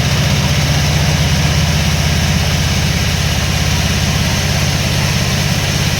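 A large engine running steadily at idle, a low, fast, even throb with no change in speed.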